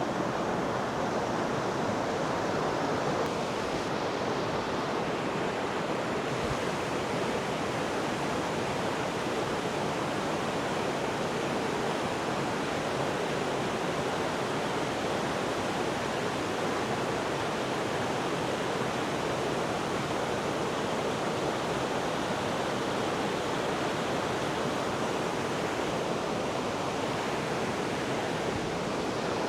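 Forest stream running steadily, a constant even wash of flowing water.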